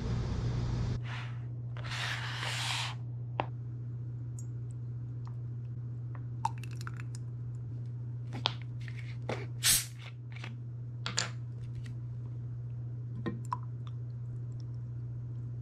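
Small handling sounds at a table: a rustle about a second in, then scattered clicks and taps of a ceramic mug and a plastic bag of passion fruit pulp, over a steady low hum. Near the end, water is poured from a plastic bottle into the mug. Outdoor noise cuts off about a second in.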